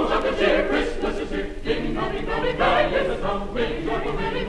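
A choir singing a Christmas carol as background music.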